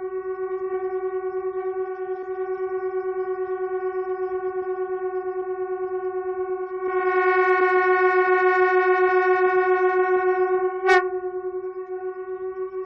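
Two conch shells blown at once by one player, sounding a single sustained, horn-like drone with a fast regular pulse. About seven seconds in it swells louder and brighter, then breaks off sharply for an instant near eleven seconds and drops back to the softer drone.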